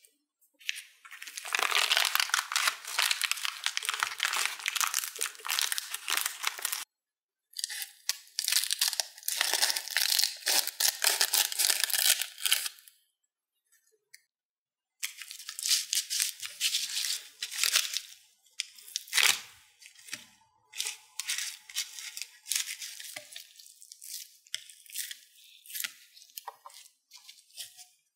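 Crinkling, tearing noise of something crisp being handled: two long stretches of several seconds, a pause, then shorter bursts about once a second, with one sharp knock partway through.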